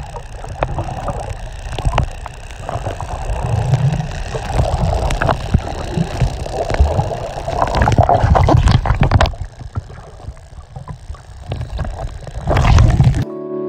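Water sloshing and gurgling around a camera held underwater, a muffled rumble with many small clicks and knocks. It turns quieter about two-thirds of the way through, swells loudly near the end, then gives way to soft piano music.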